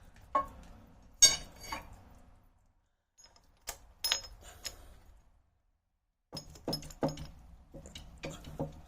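Metal tools and engine parts clinking and knocking against each other in several short clusters, with quiet gaps between, as parts of a boat motor are handled during teardown.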